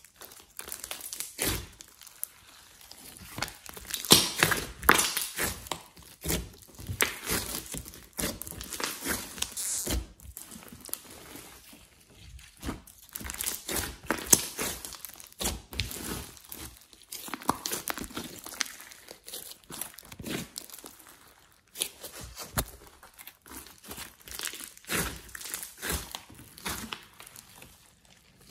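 Hands kneading, squeezing and folding a large batch of glossy slime mixed with clay and glitter, giving irregular sticky squishing and crackling. It is loudest about four seconds in and again around fourteen seconds.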